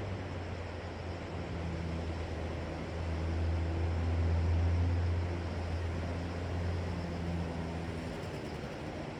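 An engine droning at a low, steady pitch, growing louder for a few seconds in the middle and then easing, over a continuous wash of sea waves and wind.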